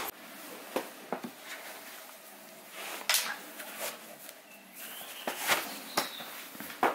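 Hiking boots being pulled off by hand: irregular rustling and scuffing of boot leather, laces and trouser fabric, with a few short knocks.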